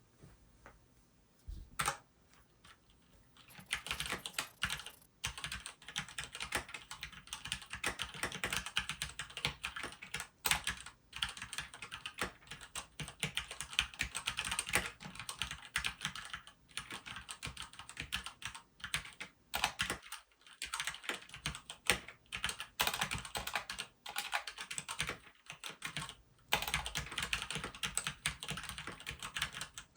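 Continuous fast typing on a stock Keychron K4 96% wireless mechanical keyboard with Gateron mechanical switches: a dense run of keystroke clacks. After a couple of lone keystrokes, steady typing starts about three and a half seconds in, with brief pauses here and there.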